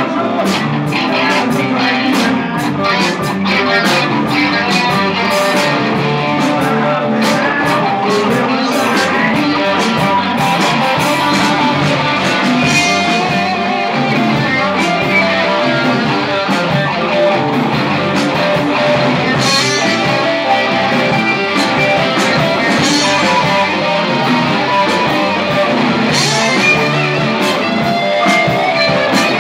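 A live blues band playing an instrumental stretch, with guitar out front over bass and drums.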